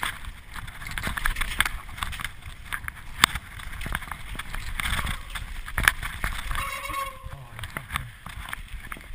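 Mountain bike riding fast down a dirt forest trail: steady wind rush and tyre rumble with the bike rattling and knocking over bumps, the sharpest knocks a little after three seconds in and near six seconds.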